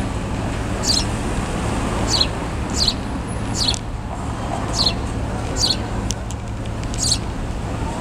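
Fledgling house sparrow begging to be fed: repeated high chirps that slide downward, roughly one a second, over a steady low background rumble.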